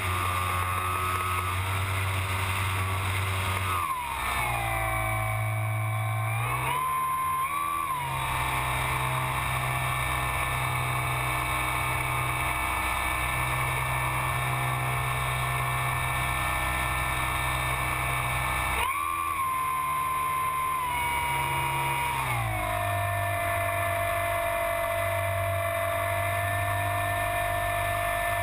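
Electric motor and propeller of a Kyosho Calmato 60 RC plane converted to electric power, heard from its onboard camera: a steady motor whine whose pitch moves up and down a few times as the throttle changes.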